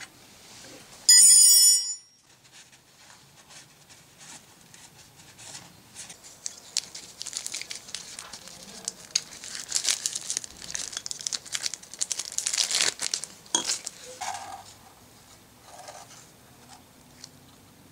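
A loud bell-like ring about a second in, lasting about a second and cut off abruptly. Then gloved hands crinkle and rustle while handling a new oil filter and an oil bottle, with two short squeaks near the end.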